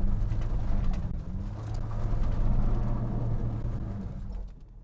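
Mitsubishi Shogun Sport's 3.0 V6 petrol engine, breathing through a cherry bomb exhaust back box, running under load as the car tries to climb a muddy bank in rear-wheel drive without getting up it. The engine sound swells to its loudest about two to three seconds in, then dies away near the end.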